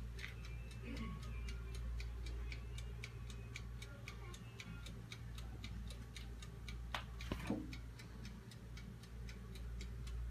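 Electric oven's mechanical timer ticking evenly, about four ticks a second, over a steady low hum, with one louder click about seven seconds in.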